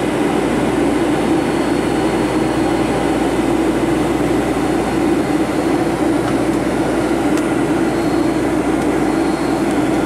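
Steady cabin noise of a Boeing 757-300 airliner in flight, heard from a window seat by the wing: an even drone of the engines and rushing airflow with no change in level.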